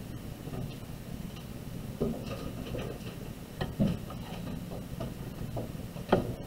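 Quiet room with a steady low hum and a few scattered light clicks and knocks at uneven intervals, the loudest about two, four and six seconds in.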